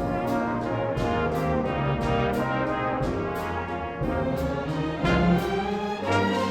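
Orchestral music led by brass instruments playing sustained chords, over a regular beat of high, sharp percussion.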